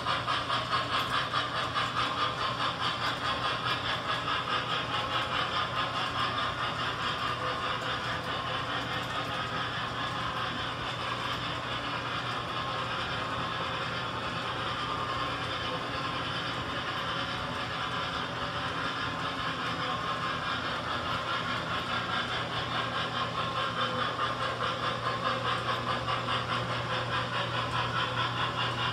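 Model train running on the layout's track: a steady rolling rumble with a fast, regular ripple, over a steady low hum.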